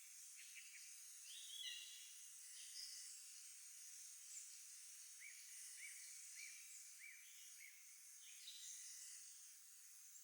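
Faint spring birdsong: several small songbirds chirping, with a run of about six short repeated notes, roughly two a second, in the middle.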